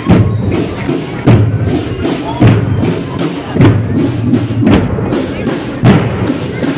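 Marching drum corps playing a drum cadence on bass drums, with a loud accented hit about once a second over a steady running drum pattern.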